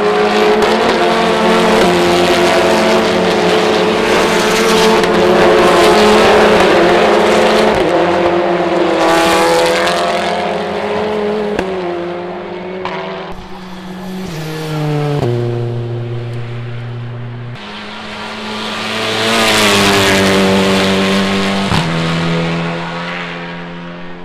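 TCR touring cars racing past, their turbocharged engines running hard at high revs. The engine pitch steps up and down with gear changes, swelling loud as cars go by twice.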